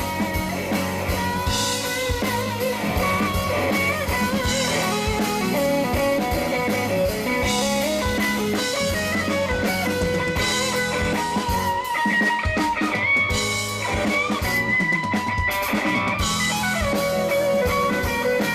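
Live band playing an instrumental passage of a pop-rock ballad: guitar carrying the melody over bass and a drum kit keeping a steady beat.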